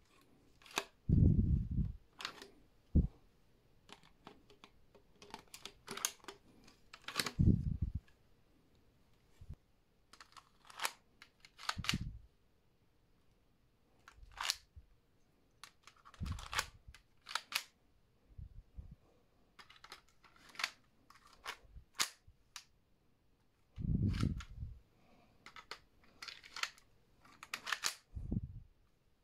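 LEGO-brick toy guns being reloaded by hand: a string of sharp plastic clicks and clacks as bricks, bolts and magazines are worked. Several short, deeper rumbles, loudest about a second in and again near the end, which the uploader puts down to wind on the microphone.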